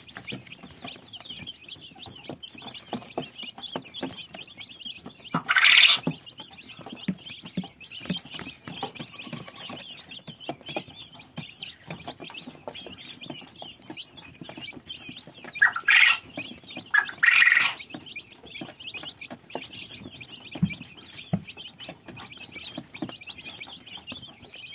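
A brood of young chicks peeping continuously in high, short calls. Three louder, longer calls stand out, one about six seconds in and two close together about two-thirds of the way through.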